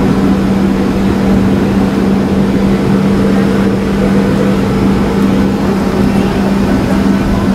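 Steady cabin drone of a Boeing 737 taxiing on the ground, its jet engines and air system running at an even level with a constant low hum throughout.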